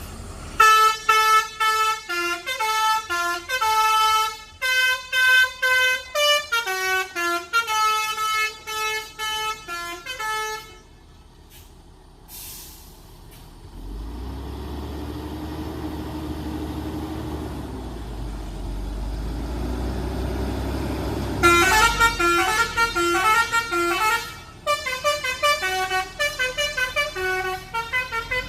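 Telolet Basuri V3 multi-tone bus horn playing quick, stepping tone melodies for about ten seconds. After a short lull the bus engine rumbles with its pitch rising and then falling, and the horn melody starts again about twenty-one seconds in.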